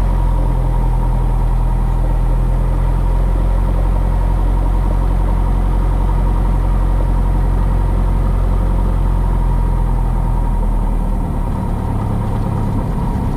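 Cessna 172S's four-cylinder Lycoming engine and propeller running steadily at low power, heard inside the cockpit. About eleven seconds in the engine note changes and drops slightly in level.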